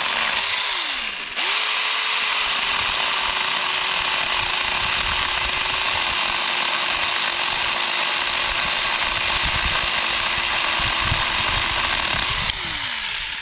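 Saker 20-volt mini cordless electric chainsaw cutting through a hard green desert holly branch: a steady motor whine with the chain chewing wood. The motor winds down and restarts about a second in, then holds its speed through the cut without bogging, and winds down near the end.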